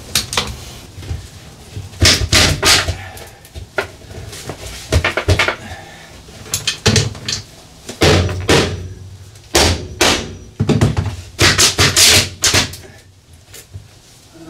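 Irregular knocks and clatter of tools and parts being handled in a steel equipment bay, in bunches of sharp hits with quieter rummaging between.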